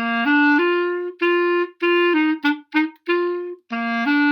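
Clarinet playing a short phrase in the low register, rising from C up to G, with a mix of slurred and short tongued notes to show the articulation. The phrase starts over from the low C near the end.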